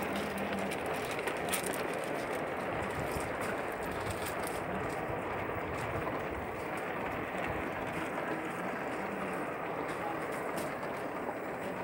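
O gauge model goods train rolling past on the track: a steady rolling rumble of wagon wheels on the rails, with scattered light clicks.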